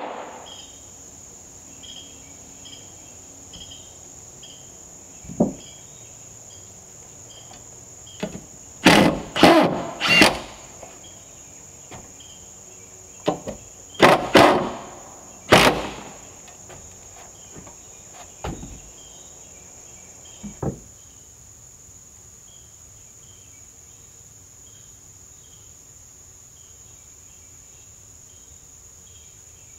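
Steady high drone of insects with a chirp pulsing about twice a second. Scattered wooden knocks and thumps come from fitting trim boards around a window frame in timber siding, the loudest bunched about nine to ten seconds in and again around fourteen to sixteen seconds, then stopping.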